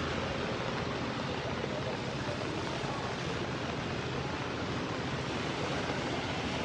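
Fast-flowing floodwater from a swollen river rushing, a steady, even noise.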